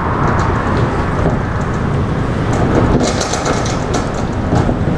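A steady low rumble of background noise, with faint small clicks about three seconds in from a rubber O-ring being worked onto a carburettor choke plunger by hand.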